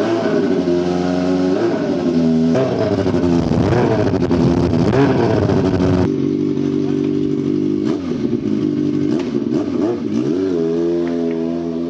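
Motorcycle engine running, its revs rising and falling several times.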